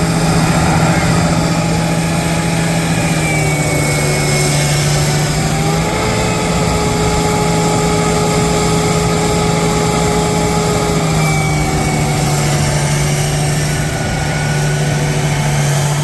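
A heavy engine on farm machinery running steadily at high speed, its pitch holding nearly level with small shifts about six and eleven seconds in.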